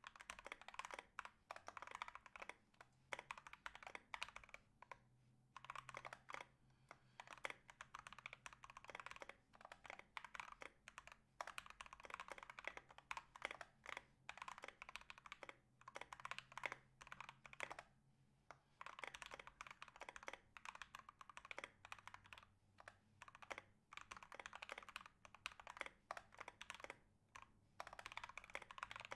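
Continuous fast typing on a Drop Carina 60% mechanical keyboard with lubed and filmed Banana Split linear switches in a brass plate and MT3 ABS keycaps: dense runs of keystrokes with a few short pauses. The clipped, heavily lubed stock stabilizers remain pretty rattley to the owner.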